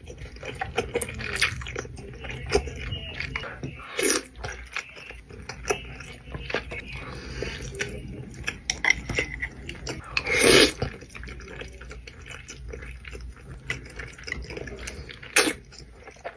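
Close-miked mukbang eating of Buldak spicy noodles: steady wet chewing with small clicks, and three short, louder bursts spread through.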